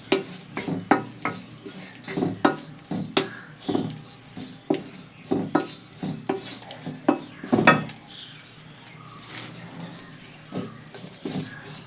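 A spoon stirring bitter gourd curry in a pan on the stove, scraping and knocking against the pan at an irregular pace over a faint sizzle. The knocks thin out after about eight seconds.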